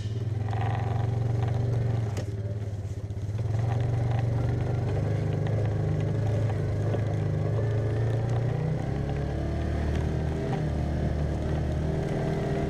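Side-by-side UTV engine running as the vehicle drives along a rough dirt trail, heard from on board. The engine eases off briefly about three seconds in, and its note drops lower past the middle, with light rattles and scrapes from the vehicle over the ground.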